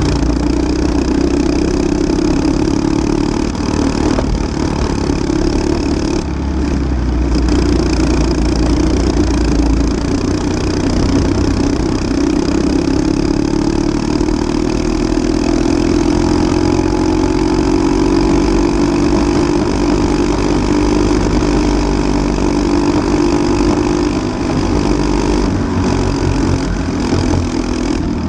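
Briggs & Stratton LO206 single-cylinder four-stroke kart engine running under racing load, close to the microphone. Its note wavers through the corners, then climbs steadily for several seconds midway as the kart accelerates down a straight and holds high.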